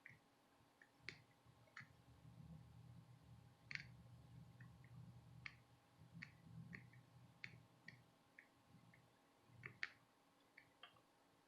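Near silence with about a dozen faint, irregular light clicks from hand-soldering work on a small circuit board, over a faint low hum in the middle stretch.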